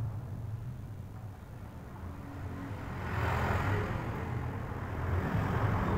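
Background road-traffic noise: a vehicle's sound swells from about halfway through, over a steady low hum.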